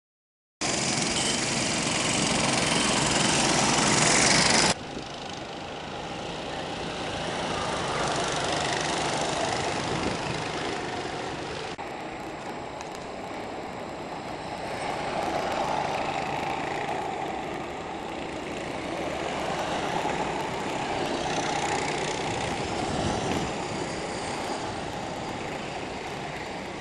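Several go-kart engines running as the karts race round the track, the sound swelling and fading as they pass. There is a louder, denser stretch of a few seconds at the start and abrupt changes where the footage cuts.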